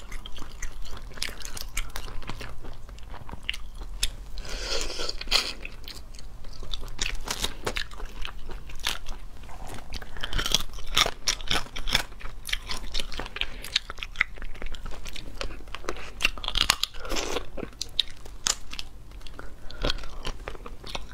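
Close-miked eating of spicy crayfish: shells cracking and crunching as they are pulled apart and bitten, and the meat chewed, in a steady run of sharp crackles. A few longer, noisier stretches come in along the way.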